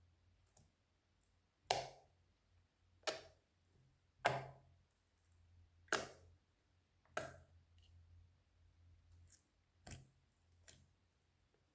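Slime being handled: a series of short, sharp crisp sounds, five strong ones spaced about a second and a half apart, then two fainter ones near the end.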